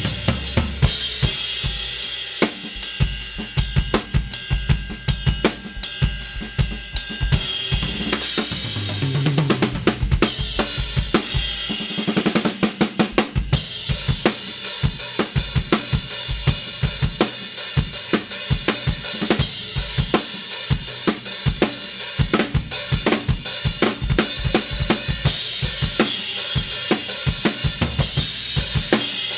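Drum kit played with a set of Istanbul Mehmet Samatya cymbals: a steady groove of kick, snare and hi-hat under a continuous ringing cymbal wash. There is a fill on the toms about nine seconds in and a burst of rapid hits around twelve to thirteen seconds in.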